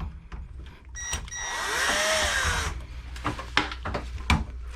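Cordless drill driving out a screw from a computer case: one burst of about a second and a half beginning about a second in, its motor pitch rising and then falling, followed by a few clicks of handling.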